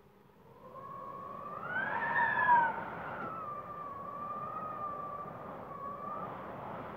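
Wind gusting and howling, with a whistling tone that swells about a second in, rises in pitch to a peak around two seconds, then falls back and holds a wavering pitch over a steady rush.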